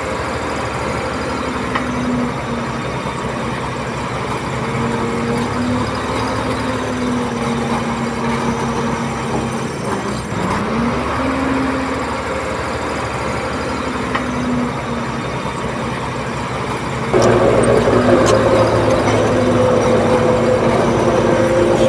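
Diesel engine of heavy earthmoving machinery running, its pitch rising and falling as the throttle changes, and growing louder with a higher note about seventeen seconds in.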